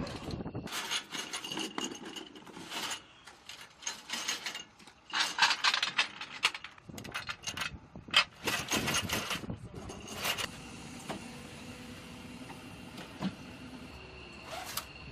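Irregular clicking and rattling of small mechanical parts being handled, which stops about ten seconds in, leaving a faint steady high tone.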